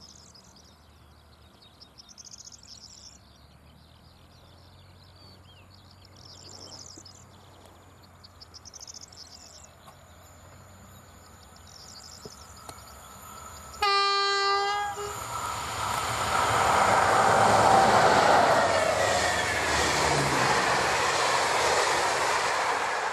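An electric locomotive hauling PKP Intercity passenger coaches sounds its horn in a single blast of about a second, a little over halfway in. Then the train passes close by, and the rolling of wheels on rail swells to a peak and stays loud as the coaches go past.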